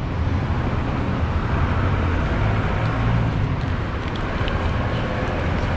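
Steady rumble of road traffic from the street outside, with a few faint light ticks.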